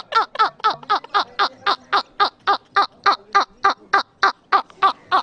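A man laughing hard in a rapid, steady run of 'ha-ha-ha' bursts, about four a second, each dropping in pitch.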